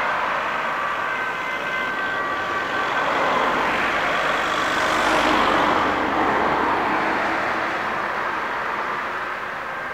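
Ambulance siren sounding faintly as the ambulance pulls away, half buried under road traffic noise. A nearby vehicle passes close, and the traffic noise peaks about halfway through.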